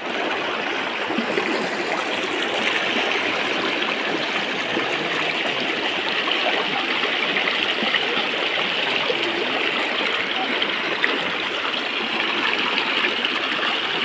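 Shallow river water rushing over and around boulders: a steady, even rush of flowing water.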